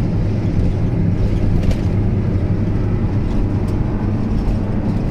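Motorhome driving at motorway speed, heard from inside the cab: a steady, loud low rumble of engine and road noise.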